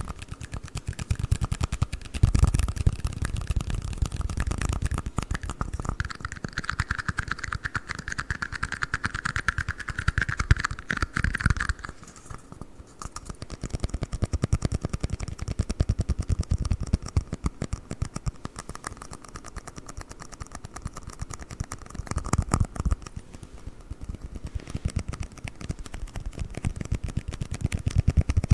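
Fast tapping and scratching on red plastic cups: a dense, continuous run of quick clicks, with a steady higher tone under them for several seconds near the middle.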